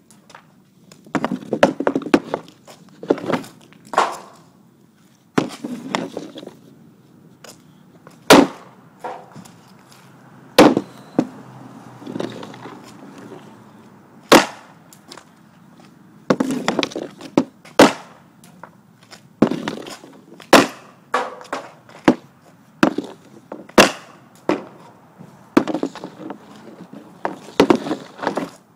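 Ice hockey pucks being shot with an Easton 65S hockey stick off a shooting surface: the blade scrapes and taps as it pulls a puck in, then a sharp crack of the shot, about every few seconds, with pucks hitting the plywood backboard behind the net.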